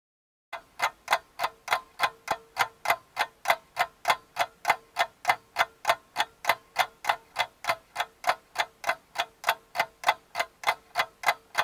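Clock ticking at a steady, even pace of about three ticks a second, starting about half a second in, with a faint steady hum beneath.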